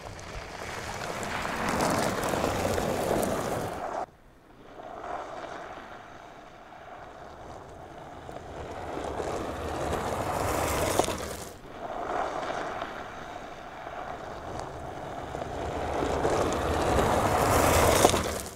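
Skoda Kodiaq pre-production SUV driving along a gravel track: a noisy mix of engine and tyres on loose gravel that grows louder as the car draws near, in three stretches, each cut off abruptly.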